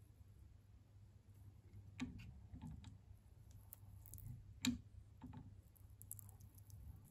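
Round threading die in a die stock being turned over a screw to cut its thread: faint, scattered metallic clicks, the sharpest about two-thirds of the way in.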